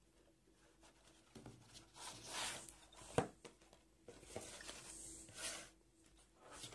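A DVD box set handled on a wooden table: faint rubbing and sliding as it is turned over and pressed flat, with a short sharp tap about three seconds in.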